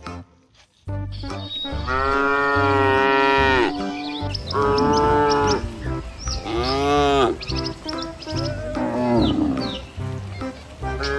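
Cow mooing, four long moos of about a second each, over children's background music with a steady beat.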